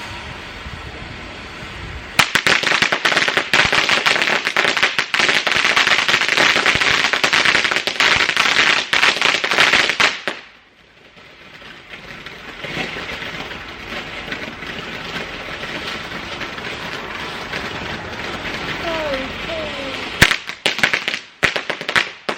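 Garden firework letting off a loud, rapid crackle of many small reports for about eight seconds, which stops abruptly. A quieter hiss follows, then a couple of sharp bangs near the end.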